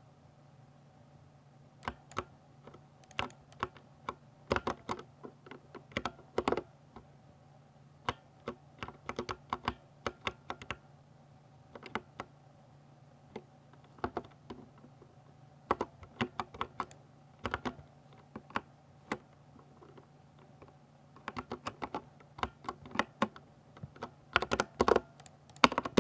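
Typing on a Ducky 60% mechanical keyboard with silver switches: irregular bursts of key clicks with short pauses between, starting about two seconds in and getting faster and denser near the end.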